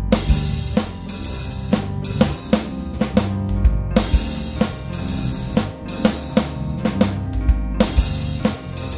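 Instrumental music with a drum kit playing a steady beat of bass drum and snare hits over a low bass line.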